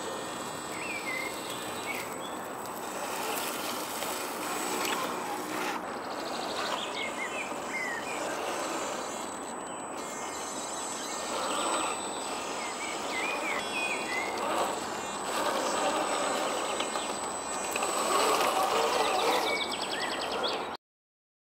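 Forest ambience with birds chirping now and then over a steady high insect-like tone. At times the whine of the RC crawler's brushed electric motor comes through. The sound cuts off suddenly near the end.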